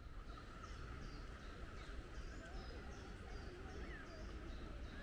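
A small songbird singing a run of short, high chirps, about two a second, alternating between two pitches, over a low outdoor rumble.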